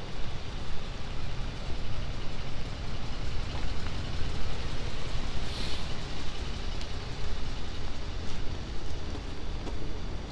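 Wet city street ambience: a steady low rumble of traffic, with a short hiss about five and a half seconds in.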